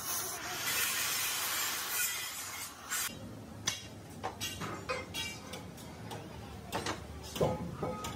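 Workshop noise: a steady hiss for about the first three seconds, then scattered clicks and knocks of tools at work.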